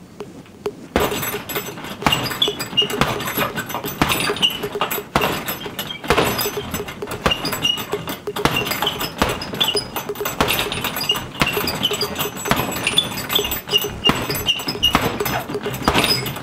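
Boxing-glove punches thudding into a hanging Everlast heavy bag, about two a second, starting about a second in, with the bag's hanging chain jangling and clinking.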